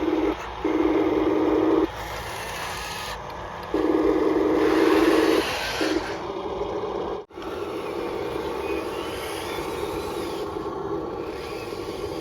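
Small electric motors of RC construction models whining in on-off bursts of a second or two, over a gritty scraping, with a brief break about seven seconds in.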